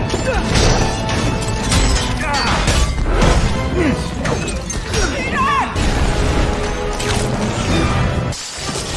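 Action-film soundtrack: background music under repeated crashes and smashing impacts of metal and glass.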